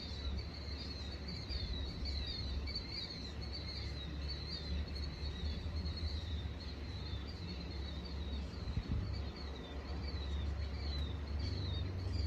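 Killdeer calling over and over, a steady string of short, high piping notes, with wind rumbling on the microphone underneath.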